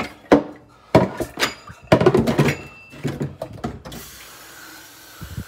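A quick run of knocks and clatters, a few with a brief metallic ring, as things are handled; about four seconds in they stop and a steady hiss sets in.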